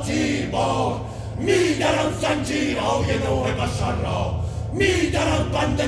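Several men's voices chanting loudly together in short, sharply started phrases over a steady low drone.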